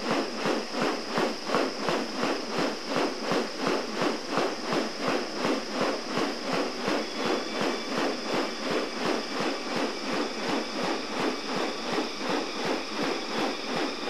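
Male magnificent riflebird in wing display, its fanned wings giving a loud, regular rustling swish about three times a second as it sways from side to side.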